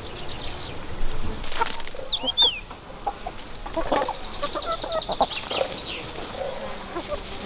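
Domestic chickens clucking, with a few short, high, sliding chirps among the calls.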